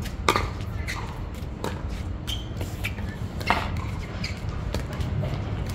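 Pickleball rally: a series of sharp pops from the paddle striking the plastic ball, with fainter clicks of the ball bouncing on the hard court between them. The two loudest hits come about a third of a second and three and a half seconds in.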